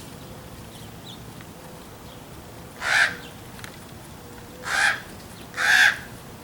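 Common ravens calling: three short, harsh caws, one about halfway through and two close together near the end.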